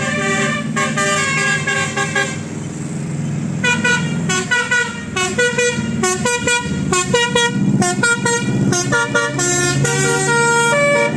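Bus telolet horn of the Basuri type playing a quick melody of short musical notes, with a short pause a little after two seconds in, over a steady engine hum.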